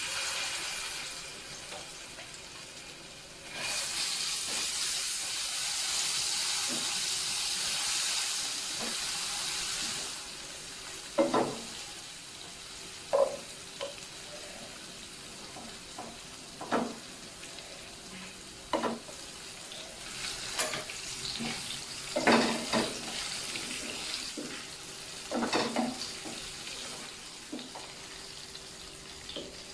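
Soup cooking in a pot: a steady hiss for about the first ten seconds, then a utensil knocking against the pot a dozen or so times as the contents are stirred.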